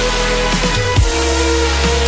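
Electronic dance music with heavy sub-bass, held synth notes and pitch-dropping bass hits about once a second.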